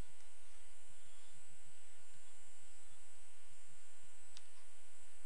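Steady electrical hum and buzz made of many even tones, with a single sharp click about four seconds in.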